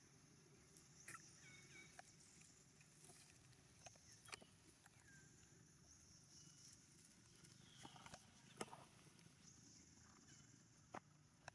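Near silence: faint outdoor ambience with a steady high hiss, a few short chirps and scattered faint clicks and crackles.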